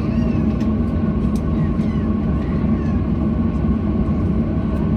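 Steady drone of a Boeing 737-800's air-conditioning heard inside the parked cabin, with a thin constant whine above a low hum, and faint passenger chatter.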